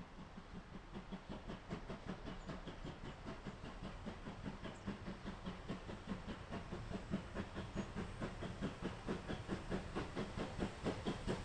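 Steam locomotive working hard, its exhaust beats coming in a quick even rhythm of about five a second with a hiss of steam, growing steadily louder as it approaches.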